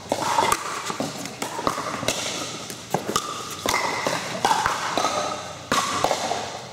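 Pickleball paddles striking the hard plastic ball, and balls bouncing on the court: sharp taps and pings at irregular intervals, several in each second, sounding through a large indoor court hall. Faint voices are heard between the hits.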